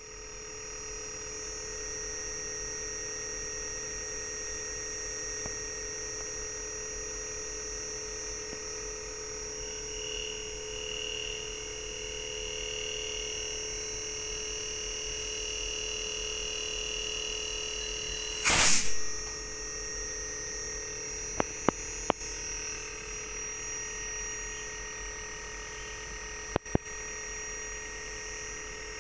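Steady electrical whine of an inverter air-conditioner PCB driving a rotary compressor under test, made of several steady tones at once; an extra tone joins about a third of the way in and drops out about two-thirds through. A loud, brief burst of noise comes about two-thirds through, followed by a few sharp clicks.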